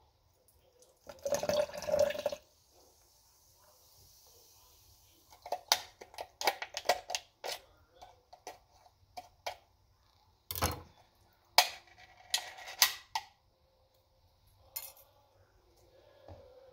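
Upturned aluminium can of half-frozen Sprite shaken and tapped against a plastic cup to work the icy slush out: irregular knocks and clicks in clusters, with a denser noisy stretch lasting about a second, starting about a second in.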